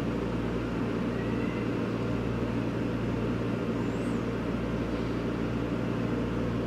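Microwave oven running: a steady electrical hum with a fan-like whir.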